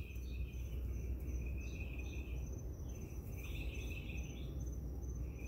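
Crickets and other night insects calling: a high chirp pulsing at an even rate throughout, with a lower trill that comes and goes in stretches, over a steady low rumble.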